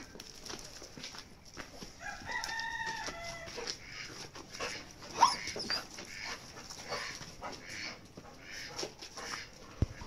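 A rooster crows once, starting about two seconds in and lasting about a second and a half. A short sharp cry, the loudest sound, follows about five seconds in.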